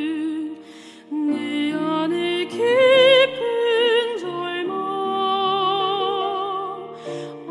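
Soprano voice singing a slow sacred song with wide vibrato over a sustained accompaniment, breaking off briefly about a second in and again near the end.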